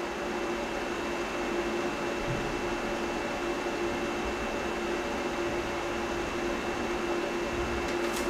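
Houzetek projector's cooling fan running: a steady rushing noise with a low hum and a faint high whine, the fan noise that the owner finds annoying.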